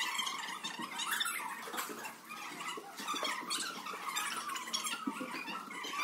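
A group of girls chattering at once, with high squeals mixed in.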